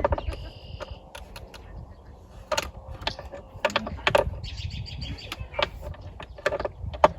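Hand tools clinking and knocking at irregular moments as sockets and a socket extension are handled, with a few sharper clacks. Birds chirp in the background at the start and again later on.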